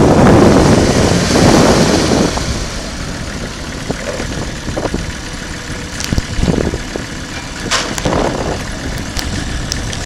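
Kubota M4700 tractor's diesel engine running as the tractor drives slowly across gravel. Wind buffets the microphone loudly for the first couple of seconds, then the engine is heard more clearly, with a few short clicks later on.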